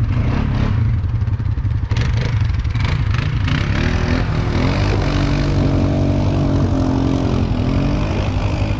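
Kawasaki Mule Pro-MX engine running low and steady in four-wheel low, heard from the driver's seat, with the body clattering over the rough trail in the first few seconds. From about four seconds in, an engine note wavers up and down as the revs rise and fall.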